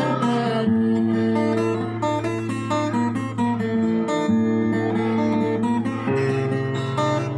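Acoustic guitar playing an instrumental passage of Batanghari Sembilan folk music: a plucked melody over held bass notes, with no singing.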